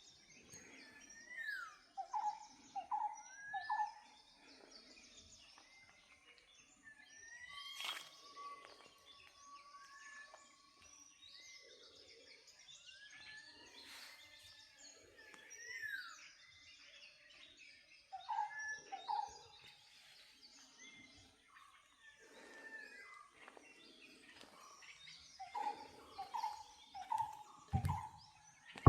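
Several different birds calling and chirping: short repeated notes in quick groups of three or four and drawn-out whistles, coming and going. A loud low thump near the end.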